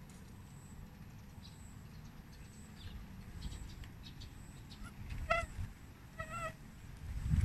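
Two short pitched animal calls about a second apart, with faint high chirps scattered through, over a steady low rumble.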